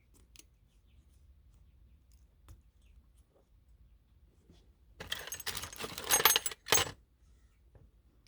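Small metal lock parts rattling and jingling together for about two seconds, after a few faint clicks of the lock being handled.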